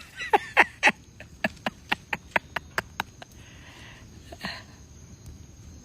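A quick run of sharp clicks, about four or five a second, for the first three seconds, then two short hisses.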